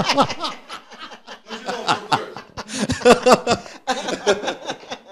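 A man and a woman laughing together in short, broken bursts.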